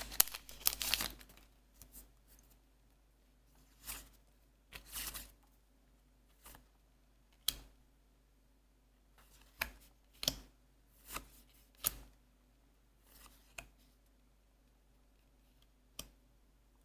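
A plastic booster pack wrapper being torn and crinkled open during the first second. Then short, scattered rustles and snaps follow as the trading cards are slid out and handled one at a time.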